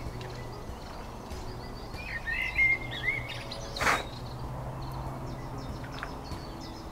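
Small birds chirping and calling in short gliding notes, loudest a little over two seconds in, over a low steady hum. A single short knock sounds about four seconds in.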